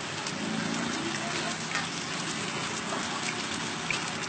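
Eggs frying on a large flat griddle: a steady sizzling hiss with scattered small pops.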